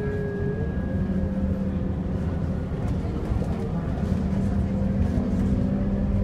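Scania K230UB city bus's five-cylinder diesel engine and driveline, heard from inside the cabin while the bus drives along: a steady low drone with a fainter whine that shifts a little in pitch.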